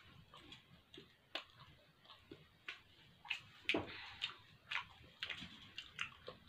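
Faint, irregular small clicks and rustles, about two or three a second: hands moving and handling things close to the phone's microphone.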